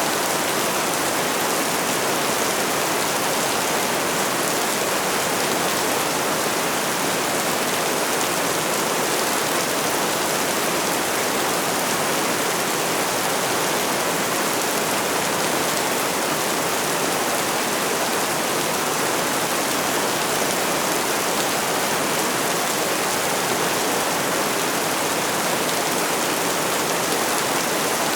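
Steady rainfall, an even, unbroken hiss of many drops with no change in strength.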